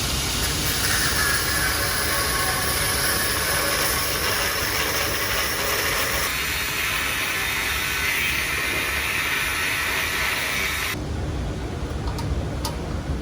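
Flux-core welding arc burning steadily with a continuous crackling hiss, stopping suddenly about eleven seconds in, followed by a few light clicks.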